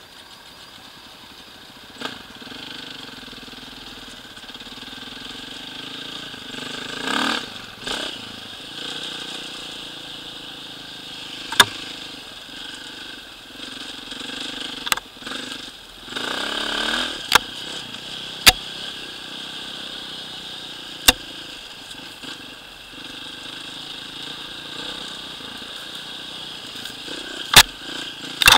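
Enduro dirt bike running while it is ridden over a gravel track, heard from the bike itself. The engine revs up and back down twice, about seven and sixteen seconds in, and sharp knocks come now and then.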